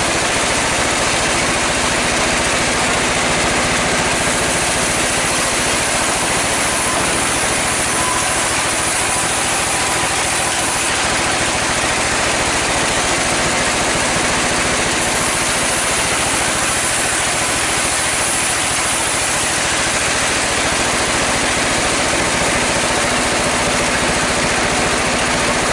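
Powered sawmill saw running steadily as mahogany slabs are fed through it, a constant loud machine drone with no pauses.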